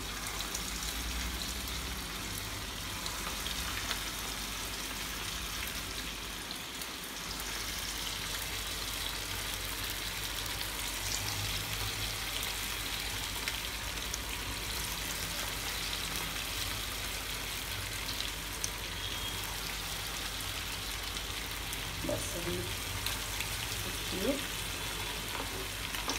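Cabbage balls deep-frying in hot oil in a frying pan over a low gas flame: a steady, even sizzle.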